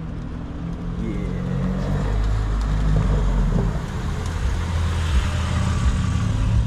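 A G80 BMW M3's twin-turbo straight-six running at low revs as the car drives up slowly and pulls in close. The low engine note gets louder over the first couple of seconds, then holds steady.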